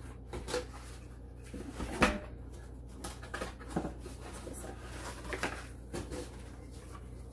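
Scattered knocks, taps and rustles of kitchenware and packaging being handled, with one sharper knock about two seconds in.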